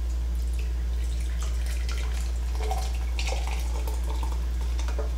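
Butter sauce pouring from a wok into a glass measuring cup, trickling and dripping in faint small spatters, over a steady low hum.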